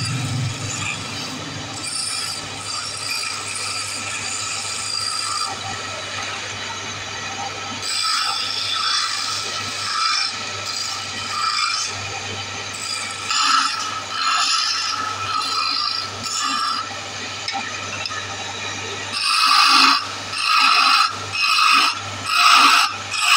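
Small wood lathe running with a steady hum while a hand-held turning tool cuts the spinning wooden spindle, a scraping hiss with a high-pitched whine. Near the end come short, louder cuts about once a second as grooves are cut into the spindle.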